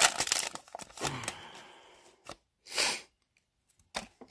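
Pokémon trading cards and a foil booster pack being handled: a sharp click at the start, light rustling, then a short swish a little under three seconds in, and a few clicks near the end.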